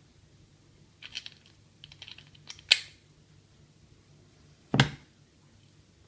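Small hard parts handled by hand on a work surface: light clicks and rattles about a second and two seconds in, a sharp click near three seconds in, and a single knock about five seconds in.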